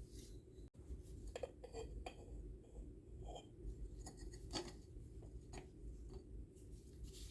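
Scattered light clicks and taps of espresso-machine parts being handled and taken apart, over a steady low hum.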